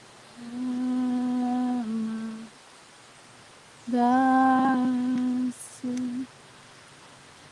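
A woman humming long, wordless held notes: a first note of about a second and a half that steps down slightly in pitch at its end, then after a pause a second long note, and a short third note near the end.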